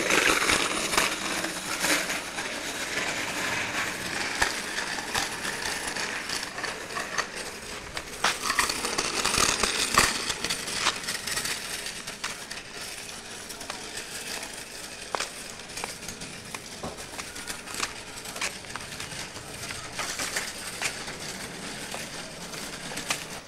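Small child's bicycle with training wheels rolling on asphalt: a gritty rattling with scattered sharp clicks, louder in the first half and lower as the bike moves away.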